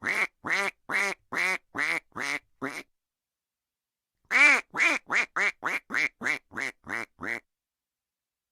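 Duck quacking sound effect: a run of about seven quacks, a pause of a second and a half, then about eleven quicker quacks.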